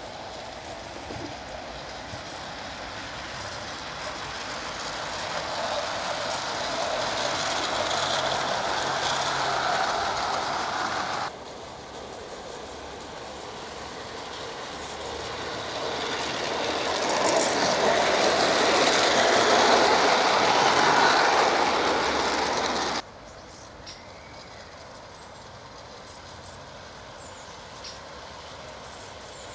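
Gauge 1 garden-railway model train running past on its track, the wheels rolling and clattering on the rails. The noise grows louder as the train nears and cuts off suddenly, twice, then only a quieter, steady background remains.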